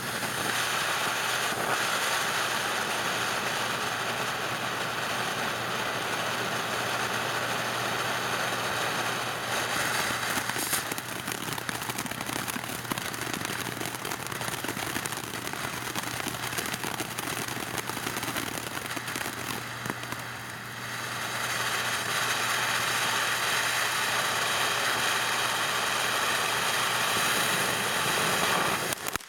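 TNT 'Go Beyond' ground fountain firework spraying sparks with a loud, steady hiss and a few crackles. The hiss dips briefly about two-thirds of the way through, then surges back.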